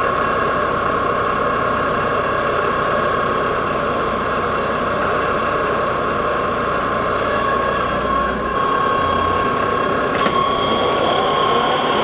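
Metal lathe running: a steady mechanical drone with a constant high whine through it, and one sharp click about ten seconds in.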